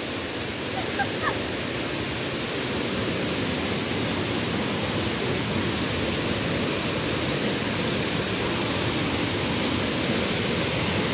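Steady rushing of a waterfall, growing a little louder as it comes closer, with two short high chirps about a second in.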